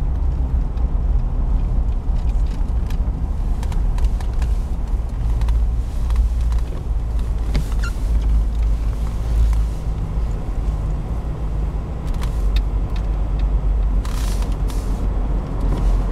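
Car driving through a road tunnel, heard from inside the cabin: a steady low rumble of engine and tyres with scattered small clicks, and a brief hiss near the end.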